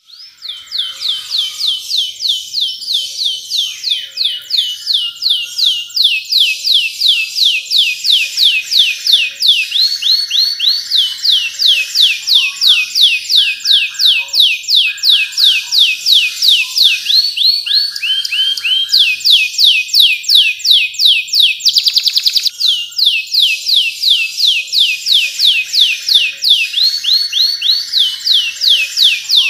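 Domestic canary singing a long, loud, unbroken song: fast runs of repeated high sweeping notes, many a second, switching to a new pattern every few seconds, with a short buzzy trill about two-thirds of the way through.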